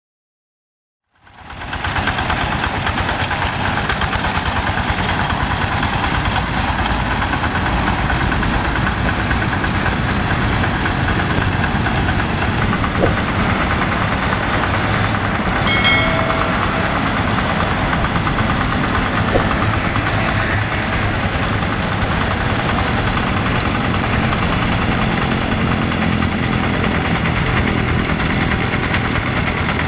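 Quick G1000 two-wheel walking tractor's diesel engine running steadily as it plows through a flooded rice paddy, fading in about a second in. A brief high chirp sounds about halfway through.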